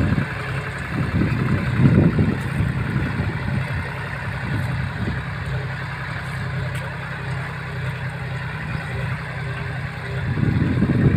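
A 42 hp farm tractor's diesel engine running steadily under load while it pulls a mouldboard plough through dry soil. There are louder swells at the start, about two seconds in and again near the end.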